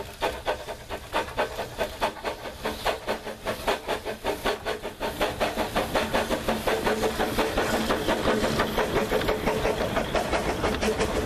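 Narrow-gauge steam locomotive Dolgoch, a Victorian 0-4-0 well tank, working a train with a quick, regular chuff of exhaust beats, growing louder as it approaches and passes. Its four-wheeled wooden carriages then roll by with rail clicks and a steady tone.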